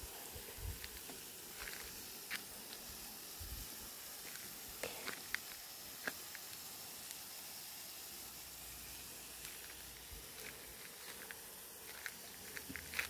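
Faint outdoor ambience: a low steady hiss with scattered light clicks and crackles, and a few low thumps near the start and about three and a half seconds in.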